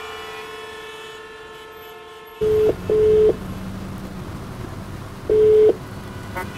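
Telephone ringback tone from a hands-free call through a car's speakers: a double beep, then after a pause a third beep, all at one pitch, over low cabin noise. Before it there is a steady held tone, and near the end a short click.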